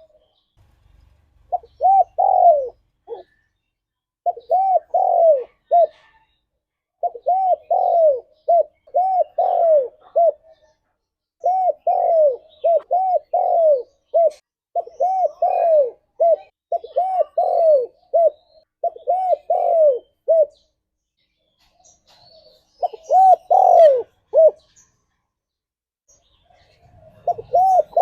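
Spotted dove cooing: repeated phrases of low, arching coos, several notes to a phrase with short pauses between. There is a longer break about 20 seconds in and another near the end.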